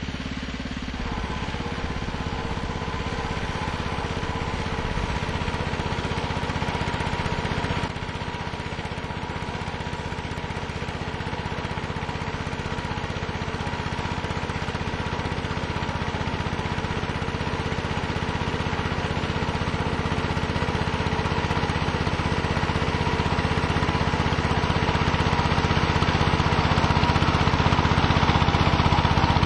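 Homemade garden tractor's engine running steadily under load as it pulls a two-bottom plow through the soil, growing gradually louder toward the end.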